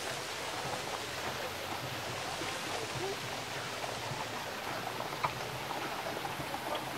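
Steady water splashing from a large stone fountain, with a few faint voices and one sharp click about five seconds in.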